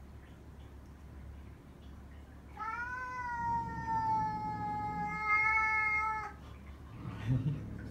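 A cat gives one long, drawn-out yowl of nearly four seconds at a steady pitch, starting about two and a half seconds in: a warning yowl in a standoff with another cat. A short low thump follows near the end.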